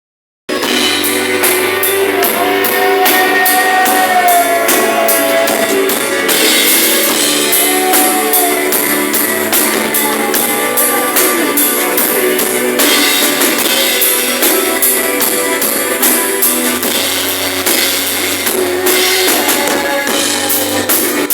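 A rock band playing live: drum kit with steady cymbal strikes under electric guitars and a gliding melody line. The recording sounds thin and lacks bass.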